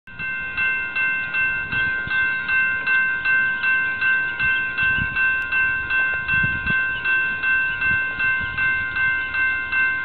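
Railroad grade-crossing bell ringing in an even, repeating rhythm of about two and a half strikes a second, the crossing warning for an approaching train as the gates come down.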